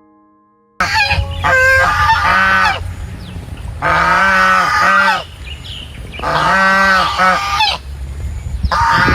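Birds honking: loud, harsh, pitched calls in four bouts of several calls each, starting about a second in after a brief near-silence.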